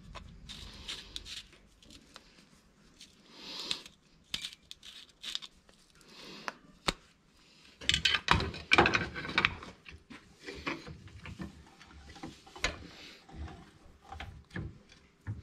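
Locking pliers and a metal throttle-control housing being handled and worked by hand: scattered metallic clicks and clinks, with a busier run of clatter about eight to nine seconds in.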